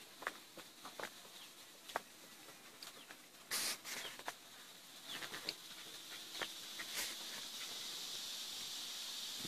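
Outdoor natural ambience: a steady high-pitched insect drone that grows a little stronger in the second half, with scattered short clicks of footsteps on rock and a few brief bird chirps. A short loud rush about three and a half seconds in.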